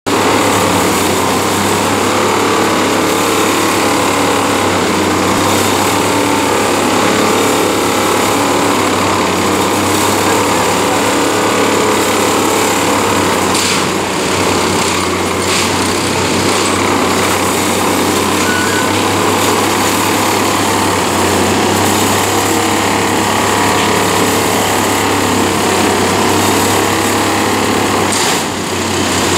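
Unimat track tamping machine working: its engine and hydraulics run loud and steady while the vibrating tamping tines are driven into the ballast to pack it under the sleepers. The level dips briefly twice, about halfway through and near the end.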